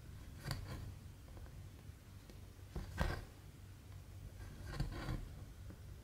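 Cotton embroidery thread pulled through 14-count Aida cross-stitch cloth, each pass of the needle a short scratchy swish: two close together near the start, one about three seconds in, and two more near the end, over a low steady hum.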